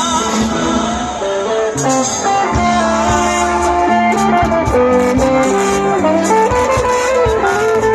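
Live band playing an instrumental passage through the PA, electric guitar to the fore over keyboard, bass and drums.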